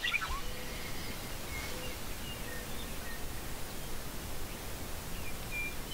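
Quiet woodland ambience: a steady, even hiss with a few faint, short bird chirps scattered through.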